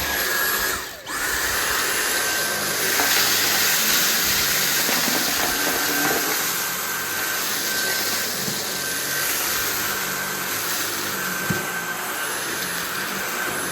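Dyson V8 cordless stick vacuum running with its motorised brush head on a fluffy rug: a steady rush of air with a thin high whine. The sound drops out for a moment about a second in and then comes back.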